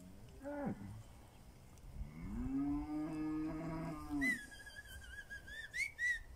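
Pinzgauer cattle mooing: a short call about half a second in, then one long, low moo of about two seconds. A high, wavering whistle follows near the end.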